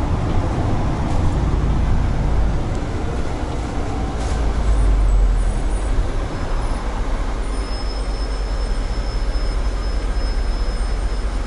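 MAZ city bus under way, heard from inside the passenger cabin: a steady low engine and road rumble. A faint high-pitched whine joins it about two-thirds of the way through.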